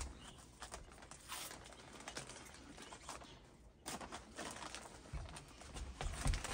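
Faint, irregular crunching and crackling of Cheetos Bolitas, puffed corn cheese snacks, being chewed, with a short lull about three and a half seconds in and a few low thumps near the end.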